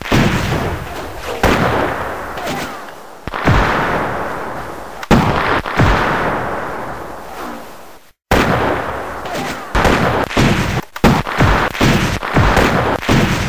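Rifle shots, each followed by a long echoing decay: single shots a second or two apart at first, then, after the sound cuts out briefly about eight seconds in, a quicker string of shots.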